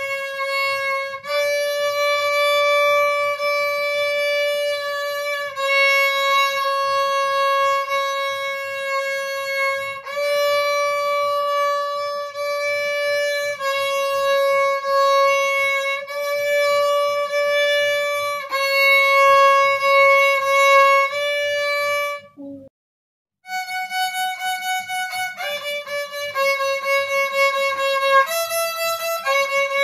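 Violin playing a slow melody of long held, bowed notes over a faint low beat. About two-thirds of the way through it stops for about a second, then resumes with quicker, shorter notes.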